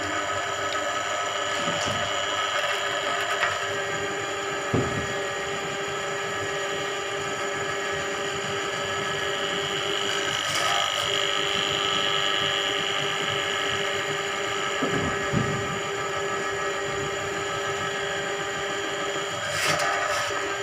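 Electric drain-cleaning machine running steadily, spinning its coiled spiral cable down a blocked drain, with a few short knocks.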